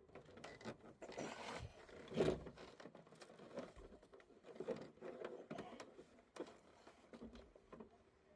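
Faint handling noises of small parts and tools: irregular scraping, rustling and small clicks, with one louder knock about two seconds in.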